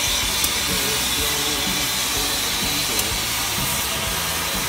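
Steady hiss of steam escaping from the cylinder cocks of Southern Railway 2-8-0 steam locomotive No. 630.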